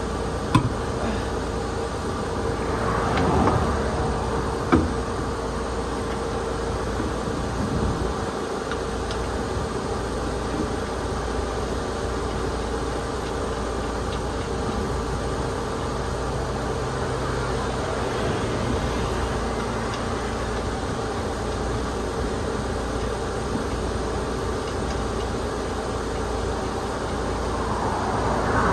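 Steady car engine and road hum. A vehicle whooshes past about three seconds in and again near the end, and there are two sharp clicks in the first five seconds.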